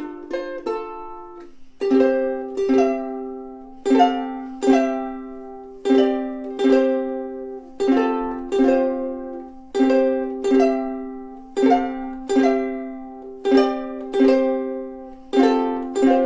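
Kanile'a Islander AS-4 mahogany soprano ukulele played solo: a few quick picked notes, then chords strummed in a steady pattern of two strokes about every two seconds, each ringing out and fading.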